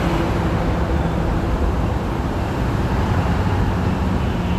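Steady low rumble of idling vehicle engines and road traffic, with a faint steady hum running through it.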